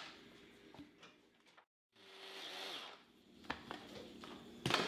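Quiet handling of a plastic mini food chopper, with a couple of sharp plastic clicks as its lid is taken off the bowl; the last click, near the end, is the loudest.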